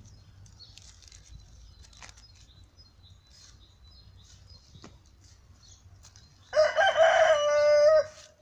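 A rooster crowing once, about six and a half seconds in, loud, for about a second and a half and ending on a long held note. Faint small-bird chirps before it.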